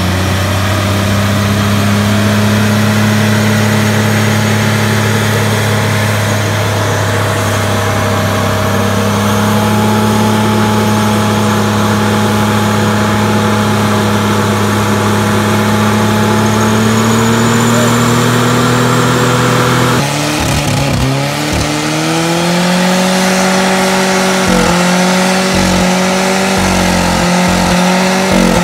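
Pickup truck engine held at high revs with only a slow creep upward while the rear tyre spins in a smoky burnout. About twenty seconds in it cuts to a smaller car's engine revving hard in its own burnout, with a wavering, faltering pitch.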